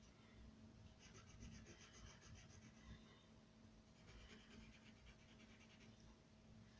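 Faint scratching of a wax crayon rubbed back and forth on paper while colouring in, in two spells of quick strokes.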